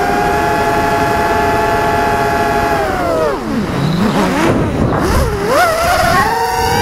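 Emax RS2205 2300kv brushless motors spinning Gemfan 5040 props on a quadcopter, heard from the onboard camera: a steady high whine that drops sharply in pitch about three seconds in as the motors slow, wavers low for a couple of seconds, then climbs back to a steady whine near the end.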